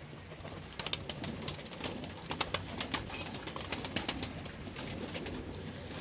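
Domestic pigeons at a loft, wings flapping in a run of irregular sharp claps from about a second in, with pigeons cooing underneath.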